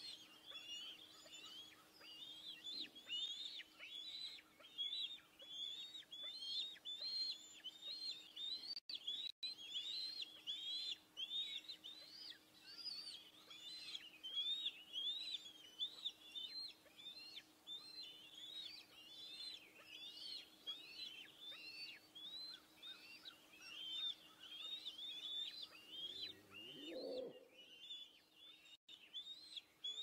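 Bald eagle eaglets giving a continuous string of high, short chirps, several a second, the food-begging calls of chicks being fed, over a faint steady electrical hum.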